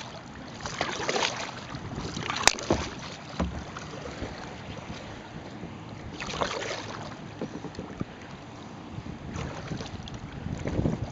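Kayak paddle strokes swishing and splashing in river water at an uneven pace, with wind buffeting the microphone. About two and a half seconds in there is one sharp knock.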